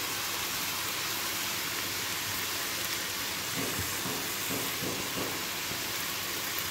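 Pan of onions and chopped greens frying in smen, sizzling steadily as the greens begin to wilt, with a few soft sounds of the leaves being pressed down by hand around the middle.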